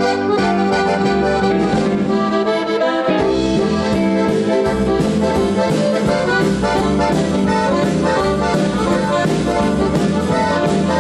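Live band music led by two piano accordions playing chords and melody. The full band comes in with a steady beat about three seconds in.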